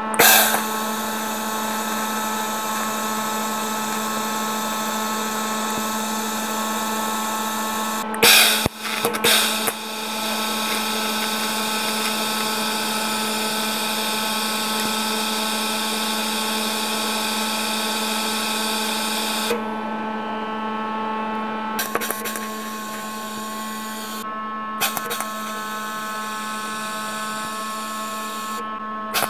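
TIG welding arc on a steel socket: a steady buzzing hum with a high hiss, crackling sharply about eight to ten seconds in and shifting a few times later on.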